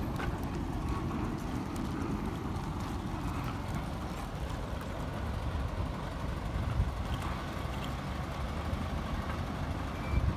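Heavy truck's diesel engine running at low speed as it hauls a catamaran on a low trailer, a steady low drone.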